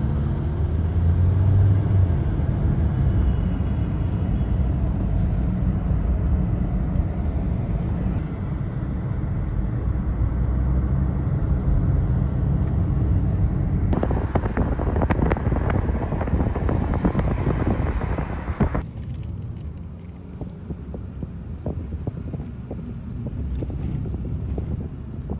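Road noise of a moving car heard from inside it: a steady low rumble of tyres and engine. A little past the middle a louder rushing comes in for several seconds, then the noise settles quieter.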